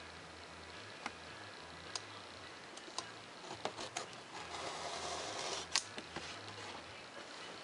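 Craft knife cutting foam board along a plastic ruler: several sharp clicks and taps, then the blade dragging scratchily through the foam for about two seconds past the middle.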